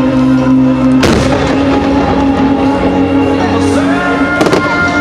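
Music playing loudly over a fireworks show, with two sharp firework bangs, one about a second in and another near the end.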